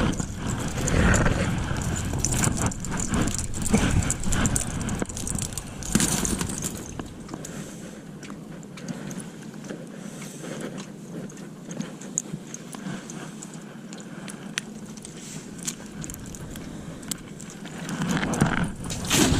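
Wind buffeting the microphone, with scattered knocks and clicks of gear being handled in a small boat; the wind rumble drops away for several seconds in the middle and picks up again near the end.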